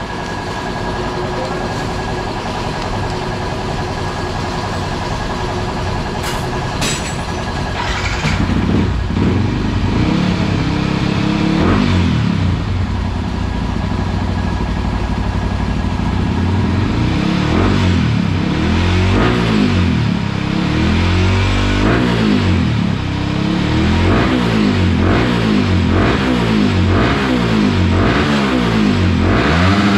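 Yamaha WR155R's single-cylinder engine running, first at a steady idle, then blipped on the throttle from about eight seconds in. The revs rise and fall repeatedly, more often toward the end.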